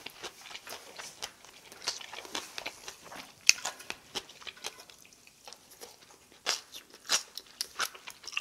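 Close-miked chewing: a run of irregular wet mouth clicks and smacks from someone eating, with a sharper click about three and a half seconds in.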